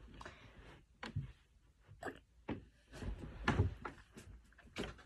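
Scattered soft knocks and thumps of objects being handled and set down, a few separate ones and then a quick cluster about three seconds in.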